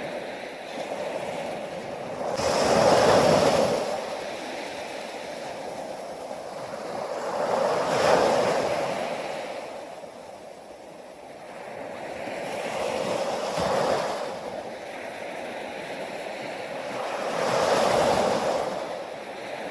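Sea waves breaking and washing ashore in slow surges, four swells in all, about one every five seconds.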